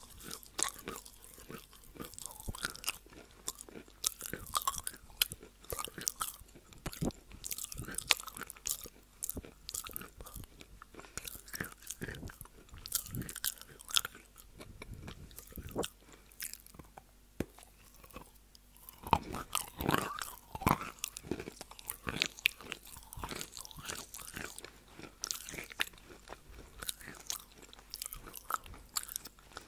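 Wet chalk being bitten and chewed right at an earphone microphone: close, irregular crunching throughout.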